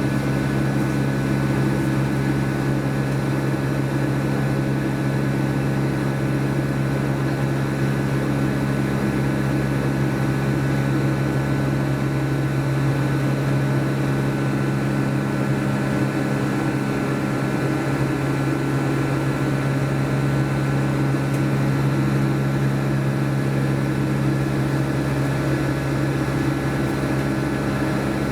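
Steady cabin drone of a Boeing 757 in flight, heard from inside the passenger cabin: the Rolls-Royce RB211 engines' low, even hum mixed with the rush of air over the fuselage, holding constant throughout.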